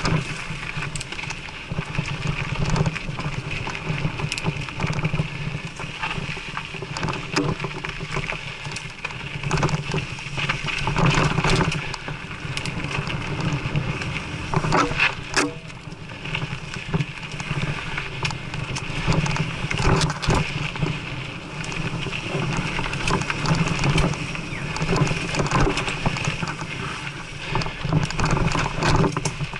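Mountain bike ridden fast down dirt singletrack, heard from a camera mounted on the bike or rider: wind buffeting the microphone, tyre noise on the dirt, and frequent clicks and rattles from the bike as it goes over bumps and roots.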